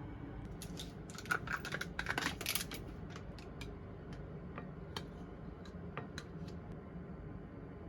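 Brief crisp rustling and clicking, then a few scattered light taps and clicks.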